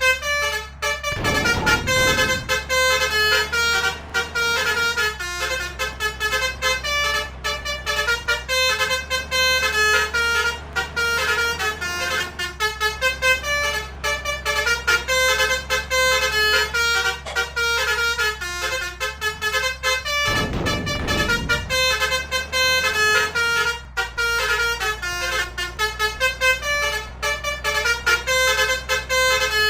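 Basuri multi-tone bus horn, the 'telolet' kind, playing a fast continuous tune of short stepped notes. Twice, about a second in and again about two-thirds of the way through, a brief rushing noise passes under the melody.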